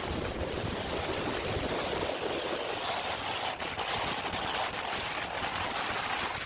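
Strong wind blowing steadily across an open beach, a continuous rushing hiss.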